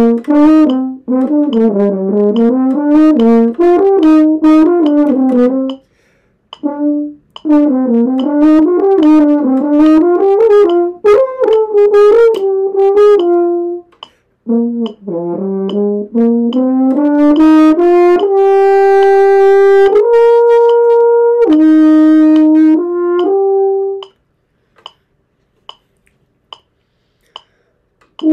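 French horn playing practice phrases: runs of quick moving notes with short breaks between phrases, then a few long held notes. The playing stops about four seconds before the end, leaving only a few faint clicks.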